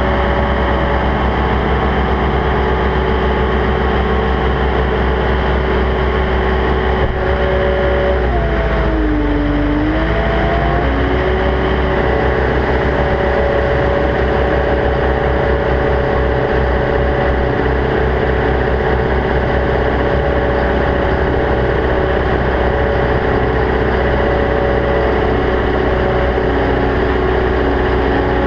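Caterpillar 299D XHP compact track loader's diesel engine running loud and steady at high speed. About eight seconds in, its pitch sags for a couple of seconds and then comes back up.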